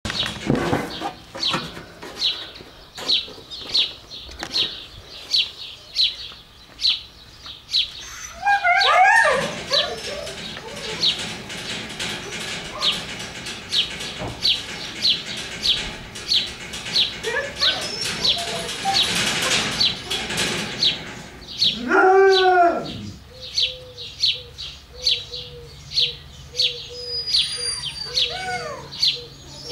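Huskies in a kennel run giving short whining calls, a cluster of rising ones about eight seconds in and one rising-and-falling whine about three quarters of the way in, over a small bird chirping over and over about once or twice a second.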